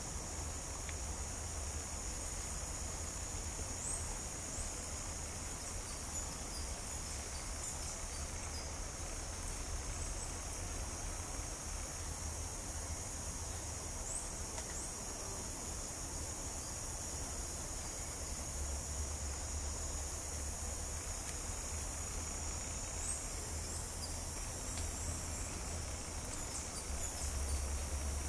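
Tropical rainforest insect chorus: a steady, high-pitched drone of many insects, with a few short faint chirps over it, and a low rumble underneath.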